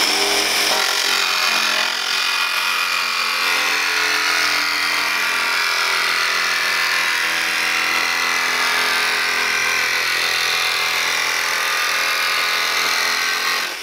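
Cordless jigsaw cutting a straight line through a van's thin steel roof panel. It runs steadily at full speed and cuts off near the end.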